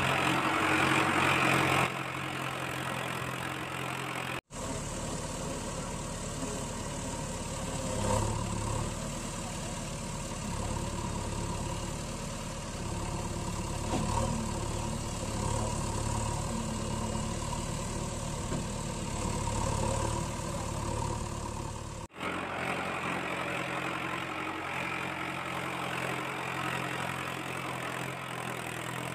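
Vehicle engine idling steadily, in pieces joined by sudden cuts about four and a half seconds in and again around twenty-two seconds.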